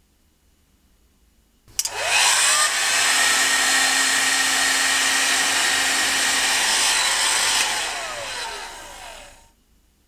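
Electric heat gun switched on with a click, its fan spinning up with a rising whine to a steady rush of hot air used to shrink heat-shrink tubing. Near the end it is switched off and whirs down to a stop.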